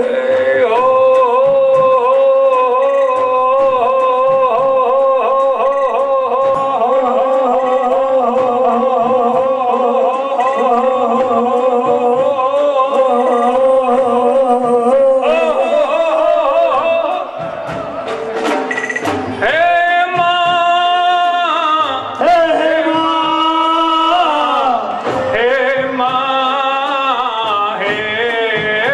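A Gujarati devotional garbo song with a man singing, amplified over a loudspeaker system. The first half is long, wavering held notes. After a brief dip about seventeen seconds in, the melody moves in steps between held notes.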